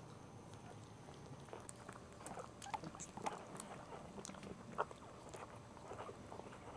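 Two-week-old Cairn Terrier puppy giving faint, short squeaks and whimpers as it crawls, among soft scattered clicks and rustles.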